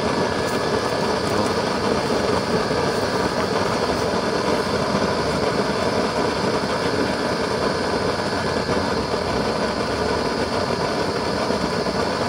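Used-oil blue-flame burner, its nozzle made from a 1/2-inch pipe coupling and end cap, burning with a steady, even rushing noise. This coupling-and-end-cap nozzle runs quieter than a coupling-with-plug nozzle: "not noisy".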